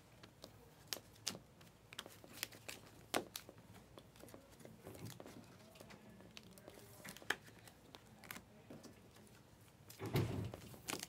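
Glossy Panini Mosaic trading cards being flipped and slid through a stack by hand: faint, irregular clicks and snaps of card stock with a light rustle. There is a louder, duller handling noise near the end.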